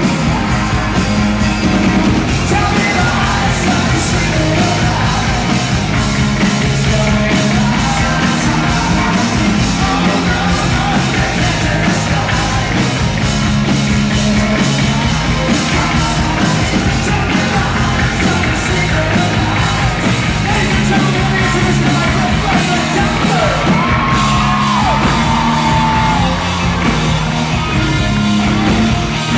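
Live rock band playing: drums, electric guitar and bass under a male lead singer, heard from the audience in a large hall.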